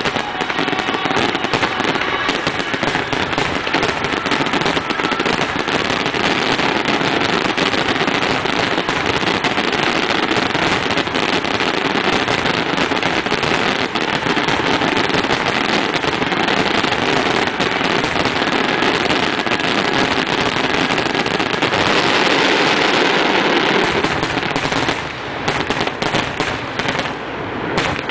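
Fireworks display in a dense, continuous barrage: launches and shell bursts crackling one on top of another. The barrage thins out briefly a couple of times near the end.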